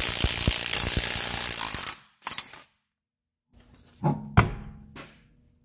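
Compact DeWalt half-inch cordless impact wrench rapidly hammering a wheel lug nut loose, stopping about two seconds in. After a short pause come two sharp metal knocks near the end as the loosened wheel is handled.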